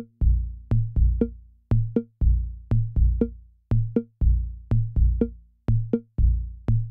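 Electronic background music with a steady drum-machine beat of about two low kick hits a second over a bass line, with sharp clicks between the hits.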